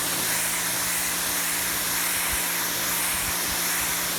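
Pressure washer running steadily: the motor's hum under the hiss of the water jet spraying onto concrete.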